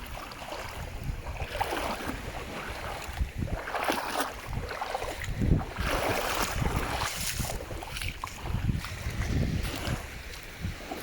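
Wind rumbling on the microphone over sea water washing and splashing at the shore, in irregular surges every second or two.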